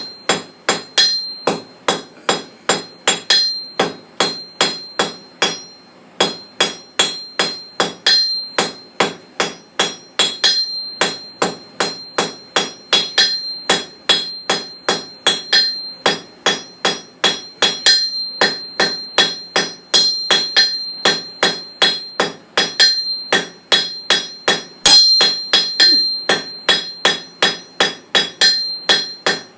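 Blacksmith's hammer striking a hot metal bar on an anvil, tapering its end. The blows come steadily, about two to three a second, and each one rings.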